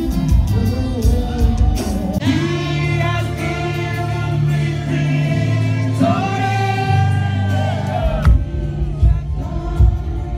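Church choir and worship leaders singing a gospel song live, with instrumental backing; long held notes over a steady bass line.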